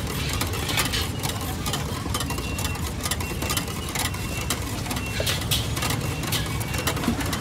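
Street-food market din: a steady low engine-like rumble with frequent sharp clicks and clatter.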